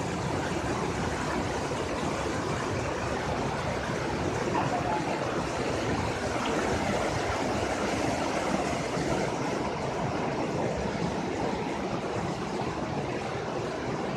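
Spring water pouring from pipe spouts and splashing over rocks into a stream: a steady rushing.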